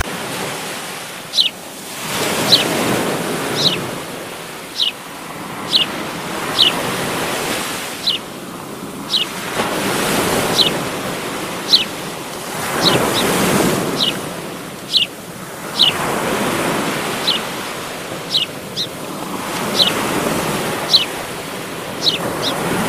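Ocean surf breaking on a beach, swelling and fading every few seconds, with short, high, falling chirps repeating about once a second.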